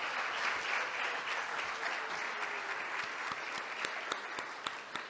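Audience applauding, thinning out to a few scattered single claps near the end.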